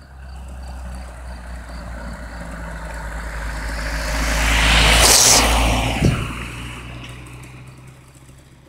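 Yamaha DTR 125 two-stroke single-cylinder motorcycle riding toward the listener. Its engine grows steadily louder to a peak about five seconds in, then dies down.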